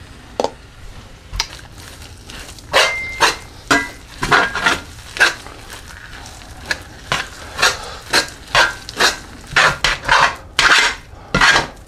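A spoon stirring and scraping thick refried beans around a cast iron skillet. The strokes are scattered at first, then settle into a steady beat of about two a second.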